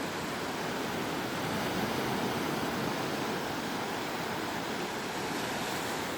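Sea surf washing onto the beach in a steady, unbroken rush, swelling slightly in the middle.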